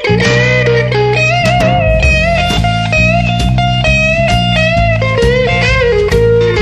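Electric blues band recording in an instrumental passage: long, bending lead notes over guitar and a steady bass line.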